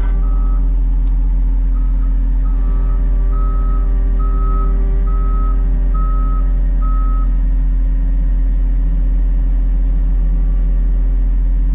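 Heavy equipment's diesel engine running steadily, with a beeping warning or reversing alarm sounding a little more than once a second for several seconds.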